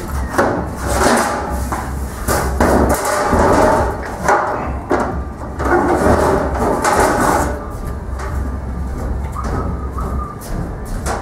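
Metal scoreboard plates being handled and slid into their slots in a steel scoreboard frame: a series of clanks, scrapes and knocks coming at irregular intervals.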